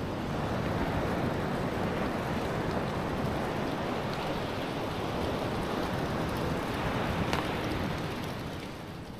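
Ocean surf washing steadily, fading out near the end.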